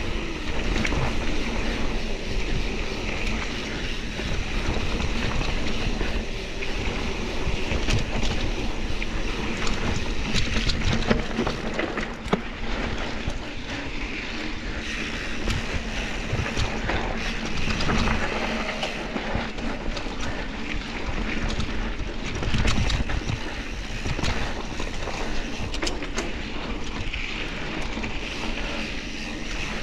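Mountain bike rolling over a dirt forest singletrack: steady tyre and ride noise with wind rushing over the microphone, and frequent short knocks and rattles as the bike runs over roots and bumps.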